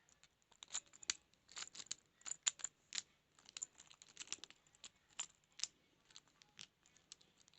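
Lock pick and tension wrench working in a small practice padlock: light, irregular metal clicks and scraping.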